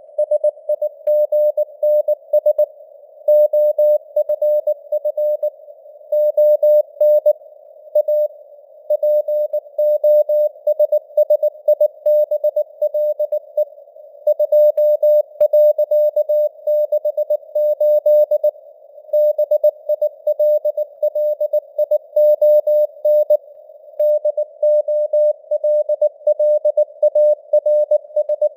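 Morse code at 19 words per minute: a single tone of about 600 Hz keyed on and off in dots and dashes, grouped into characters and words with short pauses between. Under it runs a narrow band of hiss around the tone, simulated radio receiver noise.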